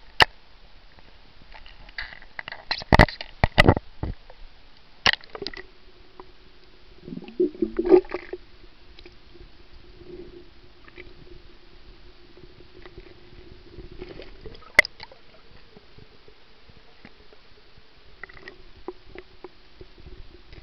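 Camera plunged into and held under seawater: sharp knocks from the camera being handled and water sloshing and gurgling in the first few seconds, then a steady low hum under water with an occasional knock.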